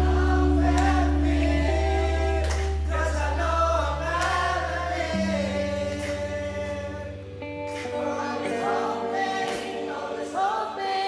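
Indie pop band playing an instrumental passage: held keyboard chords over bass that drops away about seven seconds in, cymbal strokes, and layered singing with no clear words.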